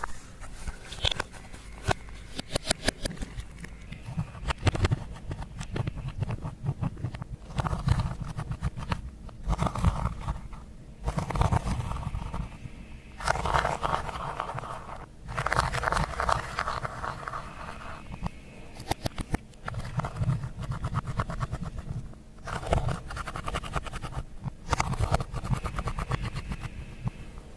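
Clear slime being mixed and squished by hand: rapid sticky clicks and pops, with scraping and squelching bursts every second or two.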